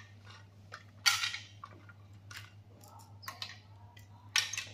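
Wooden toy cake slices and a toy knife knocking and clacking together as a toddler handles them: a handful of sharp, separate clacks, the loudest about a second in and another near the end.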